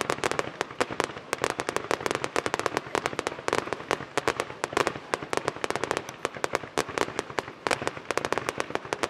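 Aerial fireworks shells bursting in a rapid, unbroken barrage, many sharp bangs a second overlapping one another.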